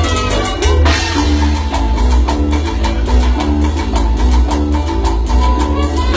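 A Latin tropical dance band playing an instrumental passage: a steady percussion beat over heavy bass, with a short melodic figure repeating again and again.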